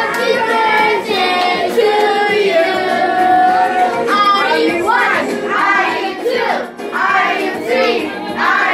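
A group of children singing together, holding long notes at first, then livelier, more varied voices from about halfway through.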